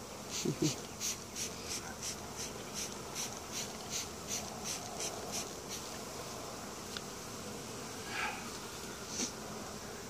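Rapid squirts of a trigger spray bottle of sugar water, about three a second for some six seconds, over the steady buzzing of a crowd of honey bees flying around an open hive.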